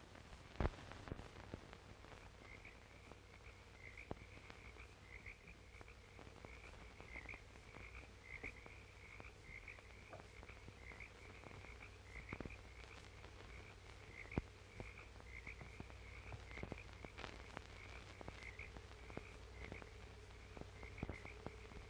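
Frogs calling at night, a faint run of short chirps about two a second that starts a couple of seconds in, over the crackle and low hum of an old film soundtrack, with one sharp click near the start.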